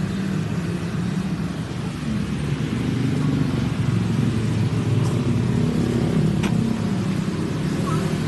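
Motor vehicle engine running with a low rumble that rises and falls slightly in pitch, with a few faint clicks.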